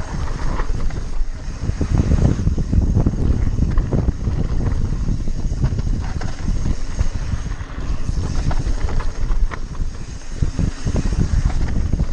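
Wind buffeting the microphone at speed while a cross-country mountain bike rattles and knocks over a rough downhill trail, with many short sharp knocks all through.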